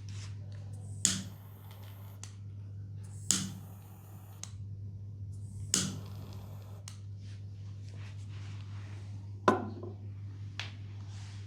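Four sharp clicks or taps, each with a short fading ring, a few seconds apart over a steady low hum.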